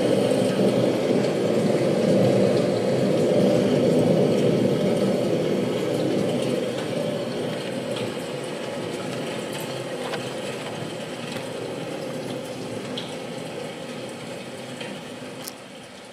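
Rushing-water sound effect, like a heavy downpour, strong at first and slowly fading out, with a few faint clicks near the end.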